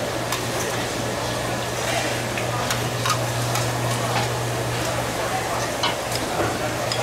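Eatery background noise: a steady sizzling hiss with scattered light clicks and clinks over a steady low hum, with faint voices.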